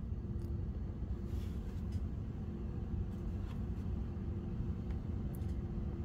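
Room tone: a low steady rumble with a faint steady hum, broken by a few faint clicks.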